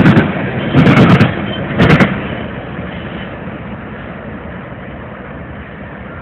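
Air horn sounding three short, loud blasts in the first two seconds, overloading the microphone, followed by a steady rumble that slowly fades.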